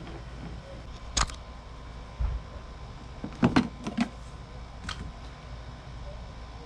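Screwdriver and liftgate trim parts being handled: a sharp click about a second in, a dull knock, then a quick cluster of clicks and knocks and one more click, over a steady low hum.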